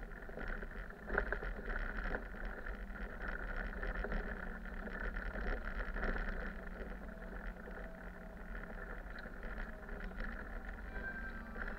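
Bus driving along a street, heard from inside the cab: steady engine and road noise with light rattles, and a single knock about a second in.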